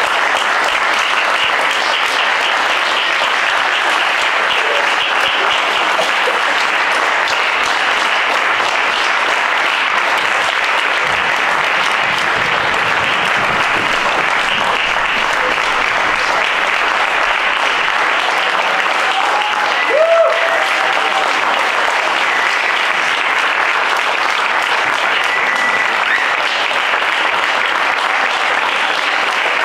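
Audience applauding steadily through a curtain call, with one brief cheer rising above the clapping about two-thirds of the way through.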